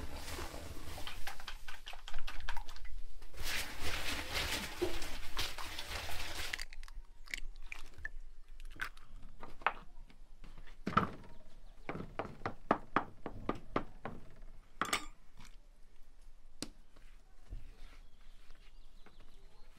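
Water splashing and dripping as a wet cloth is wrung out over a clay tandoor. About six and a half seconds in the sound cuts to scattered light taps and soft slaps of hands pressing and patting dough on a wooden board.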